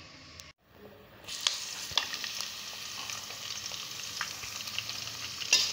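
Sliced onions sizzling as they fry in oil in a metal pot, stirred with a spoon that scrapes and clicks against the pot. The sizzle starts about a second in, after a brief silence.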